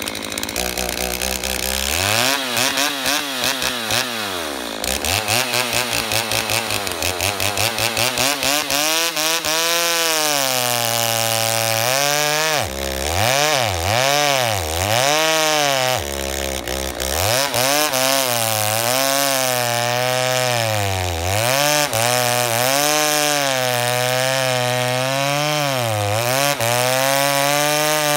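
Stihl MS290 two-stroke chainsaw cutting through a fir log, its engine pitch rising and falling over and over as it works through the wood.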